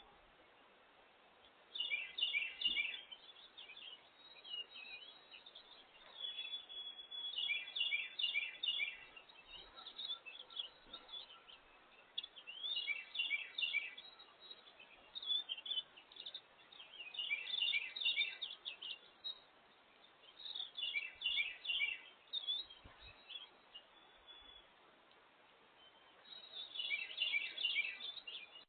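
A songbird singing a short phrase of quick repeated notes, six times, every four to six seconds, over faint steady outdoor background noise.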